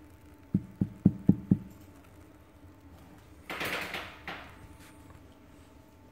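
Stainless steel milk pitcher full of steamed milk tapped five times on the counter, about four dull knocks a second, the usual way to settle the foam and burst large bubbles; a short swishing noise follows about three and a half seconds in.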